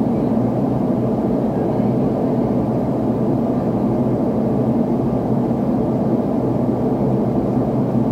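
Steady cabin noise of a McDonnell Douglas MD-80 airliner climbing out after takeoff: the even hum and rush of its rear-mounted JT8D turbofan engines and airflow, heard from inside the cabin, deep and without change.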